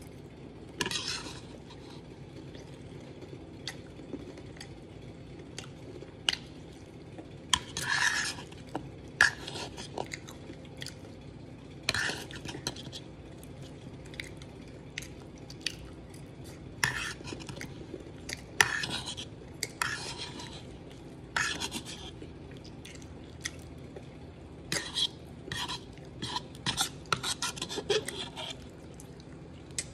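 A fork scraping and clicking against a bowl as ice cream is scooped up, in irregular short scrapes and taps with gaps between.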